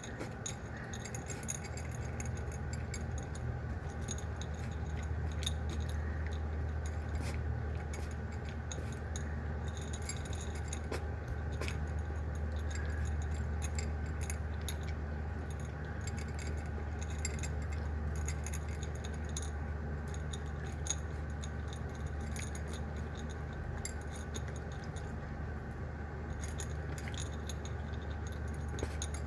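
A cat eating dry kibble off a plate: irregular small clicks and clinks as the hard bits rattle against the plate and each other while she picks them up with her tongue, her lower jaw partly removed by a mandibulectomy. A steady low hum runs underneath.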